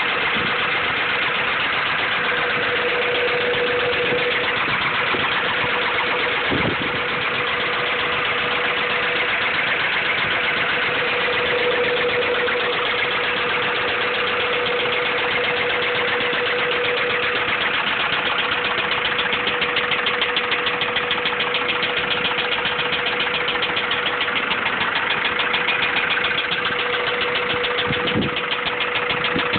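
Honda B16 VTEC inline-four engine running steadily with a rapid knock in its beat, which the owner takes for rod knock, a worn connecting-rod bearing. A steady whine sits under the engine note.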